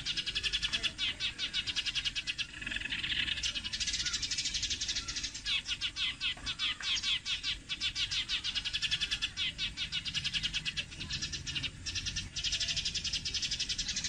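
Sparrows chirping in a rapid, continuous chatter, several high chirps a second with brief pauses.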